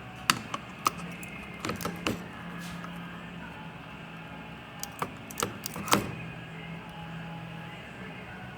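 A steady low machine hum with a scatter of sharp clicks and knocks: a few just after the start, a short cluster about two seconds in, and another between five and six seconds in.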